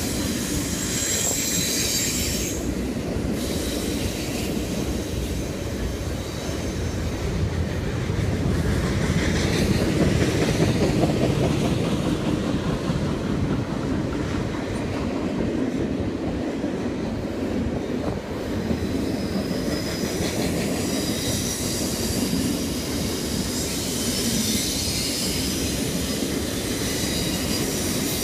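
Double-stack container train's cars rolling past: a steady rumble of steel wheels on rail, with high-pitched wheel squeal near the start and again through the second half as the cars take the curve.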